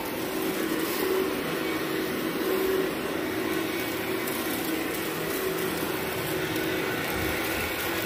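Workhorse upright vacuum cleaner running steadily as it is pushed back and forth over carpet, its motor holding a steady hum.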